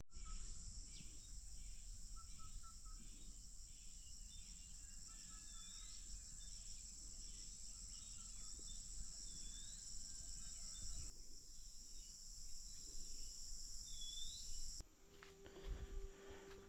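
Insect chorus: a steady high-pitched buzz with short chirps repeating about once a second. It cuts off suddenly near the end.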